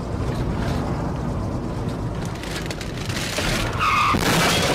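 Dashcam car's steady road and engine rumble, then, almost four seconds in, a short tyre screech as a car cuts across in front, followed by loud harsh noise from the emergency braking or skid.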